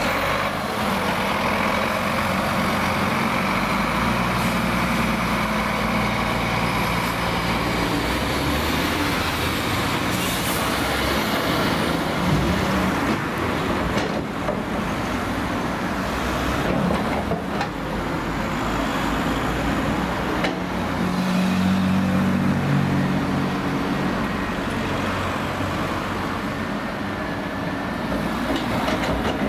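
Diesel engines of an Iveco Trakker tipper truck and a Cat 323D tracked excavator running together. The low engine hum swells twice as the excavator works under hydraulic load. A few sharp knocks come in the middle.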